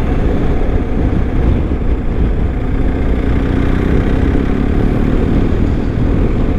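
BMW R1250 motorcycle's boxer-twin engine running steadily while riding, under a heavy low rush of wind and road noise.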